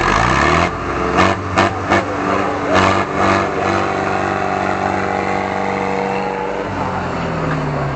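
Diesel engines of a Zetor 4340 and a Same Explorer tractor revving up hard and then held at high revs under full load as the two tractors pull against each other, dropping in pitch near the end. Several short loud bursts come over the first few seconds.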